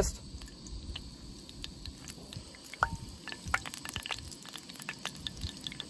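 Hot cooking oil in a frying pan crackling, with scattered small pops and ticks. The oil is just coming up to frying heat.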